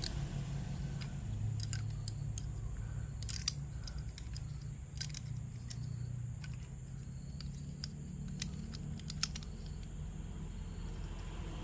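Scattered light clicks and taps of small plastic toy parts being handled during assembly, over a low steady hum.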